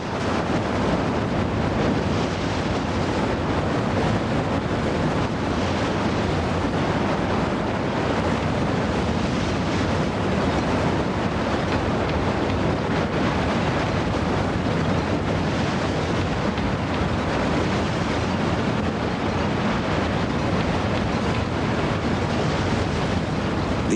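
Loud, steady rush of big whitewater rapids, the churning water making a continuous noise with no break.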